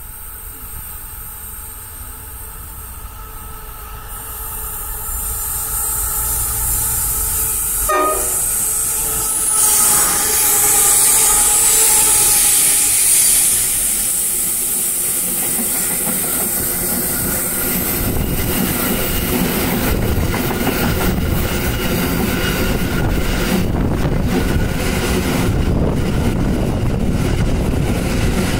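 Diesel-electric freight locomotive approaching and passing close by, with a short horn blast about a third of the way in and the engine at its loudest just after. Then a steady rumble and clatter of empty flat wagons rolling past on the rails.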